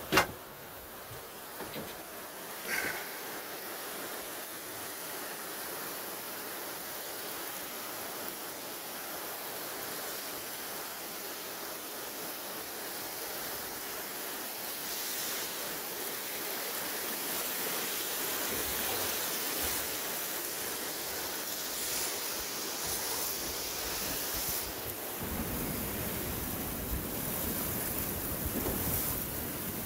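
Steady rushing hiss of fast tidal rapids churning with whitewater. A sharp click at the very start, and wind rumbling on the microphone for the last few seconds.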